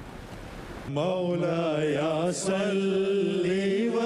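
A single voice chanting a slow, drawn-out melody with no instruments, coming in about a second in after a brief steady hiss.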